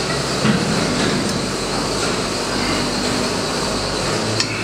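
Steady rushing, rumbling background noise, with a short click about half a second in and another near the end.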